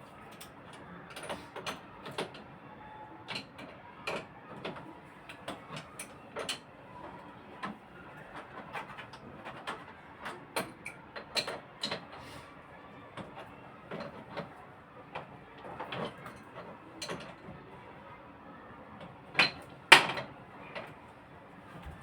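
Irregular metal clicks and knocks of spanners working on an air conditioner's pipe fittings, with two louder knocks near the end.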